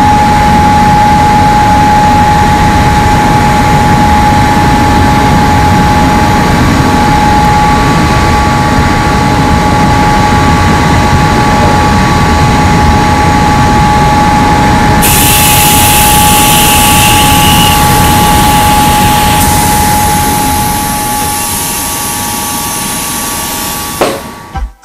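Loud, steady machinery noise from a recycled-cardboard mill's pulping section, where the pulp is being let down into the tanks below. A thin steady whine runs through it, and a burst of hissing comes in from about 15 to 19 seconds in.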